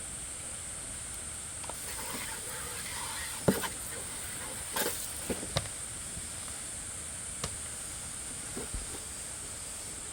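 A steady hiss with a few scattered sharp knocks and clicks, the loudest about three and a half seconds in.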